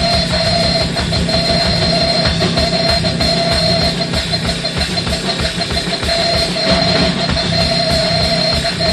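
Live improvised drumming: fast, dense strokes on a drum kit over steady droning tones, with no break.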